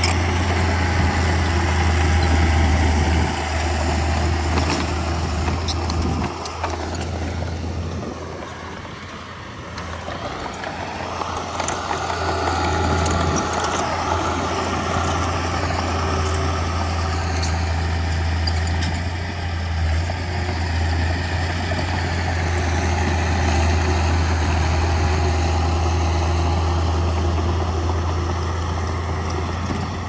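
Heavy diesel earthmoving machinery running with a steady low drone. It eases off for a couple of seconds about a third of the way in, then picks up again with a higher engine note.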